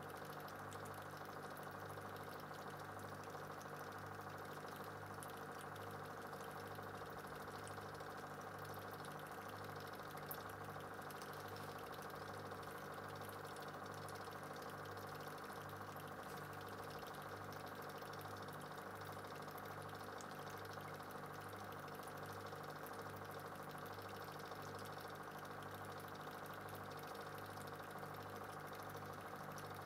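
Steady low mechanical hum of an aquarium air pump, throbbing in a slow, even beat.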